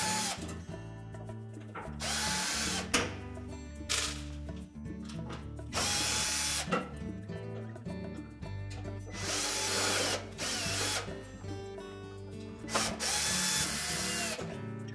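Cordless drill/driver run in about six short bursts, backing out the screws that hold a range's sheet-metal back panel. Each burst spins up to speed, holds briefly and winds down.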